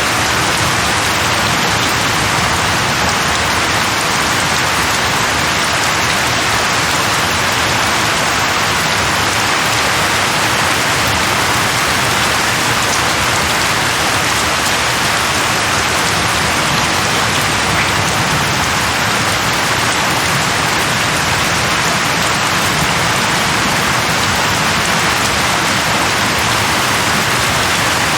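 Steady heavy rainfall, a dense even hiss of drops on surfaces without pauses or thunder.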